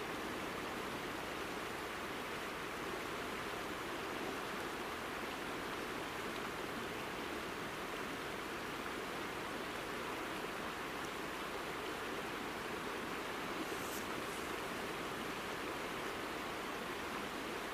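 Azusa River's clear mountain water flowing over its gravel bed: a steady, even rushing.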